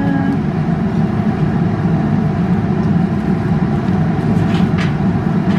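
Kitchen range hood fan running with a loud, steady low drone, with a couple of light scrapes of a wooden spatula stirring rice in the pan near the end.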